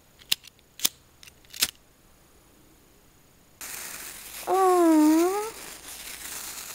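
Three sharp clicks in the first couple of seconds. Then a sparkler catches about three and a half seconds in and fizzes with a steady hiss. Over it, a voice gives one long wordless call that dips and rises in pitch.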